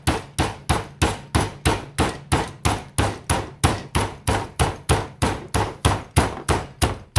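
A food can used as a meat mallet pounding chicken breast in a plastic zip bag on a granite countertop: a steady run of strikes, about three a second. The pounding flattens the breast to an even thickness so it cooks through evenly.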